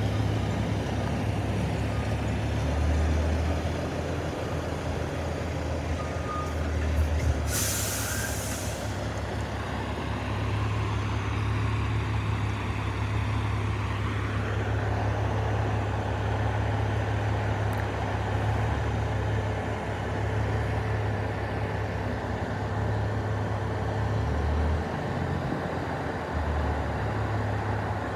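Heavy diesel crane truck running steadily, with one sharp air hiss about eight seconds in lasting about a second and a half: its air brakes releasing.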